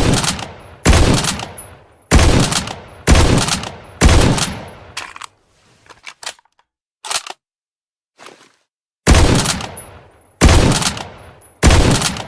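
K14 sniper rifle sound effect firing single heavy shots, each with a reverberating tail of about a second. Five shots come roughly a second apart, then a few faint clicks during a short pause, then three more shots.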